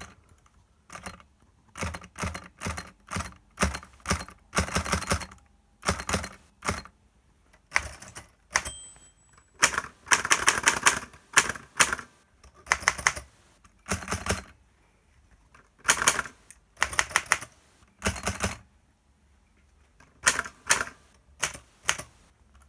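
Typing on a 1932 Underwood Noiseless Portable typewriter: runs of quick keystrokes in bursts, with short pauses between them.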